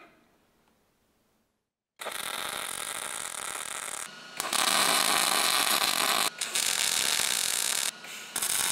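Wire-feed (MIG) welder laying tack welds on structural steel brackets. The arc starts suddenly about two seconds in and runs in long stretches, with short breaks about four, six and eight seconds in.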